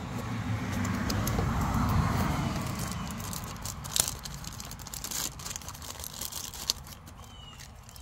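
Plastic packaging crinkling and clicking as a new LED camper light is unwrapped by hand from its bag and box, with a sharp crackle about four seconds in and another near the end. Under it, a low rumble and hiss swell and fade over the first three seconds.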